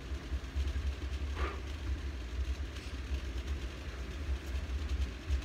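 A low, steady rumble, with one short faint sound about a second and a half in.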